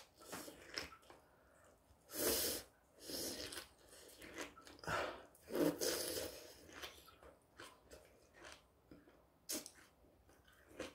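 A person slurping and chewing crunchy soybean sprouts, with several short, loud slurps, the strongest about two seconds in and again around five to six seconds, between softer chewing and small clicks.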